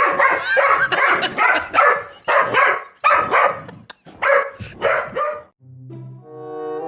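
A dog barking in a rapid run of about eight loud barks over some five seconds. Steady music notes come in near the end.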